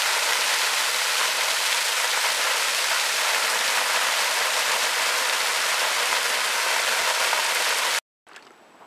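Water pouring and splashing over rocks close by, a small cascade in a rocky river: a steady, loud, hissing rush with little low rumble.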